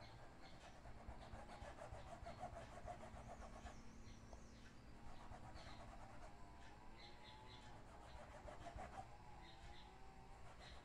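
Near silence: faint room tone with faint high chirps in the background.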